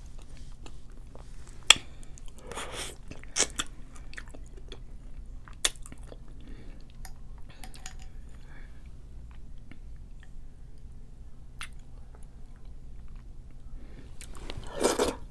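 Close-miked chewing and wet mouth sounds of a person eating seafood boil, with scattered sharp clicks and smacks and a louder burst of mouth noise near the end.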